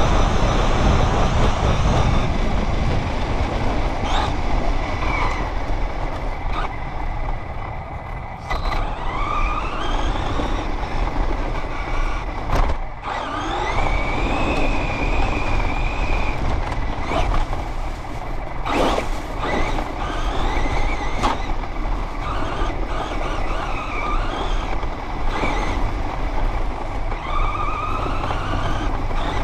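Radio-controlled car driving over rough dry grass, heard from on board: its motor and drivetrain whine rising and falling in pitch with the throttle over a steady rush and rumble from the chassis. A few sharp knocks come from bumps along the way.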